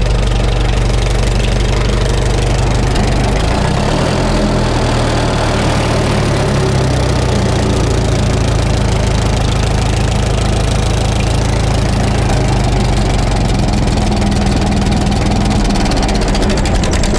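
Farmall M tractor's four-cylinder engine running steadily through its newly fitted muffler.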